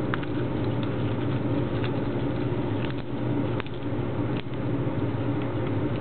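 African grey parrot chewing and tearing at a scrap of paper held in its foot, its beak giving a few scattered sharp clicks, over a steady low hum.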